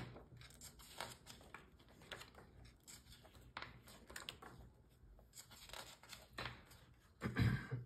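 Paper pages of a thick paperback book being turned one after another, with short rustles and flicks of the pages. A louder, duller thump comes near the end.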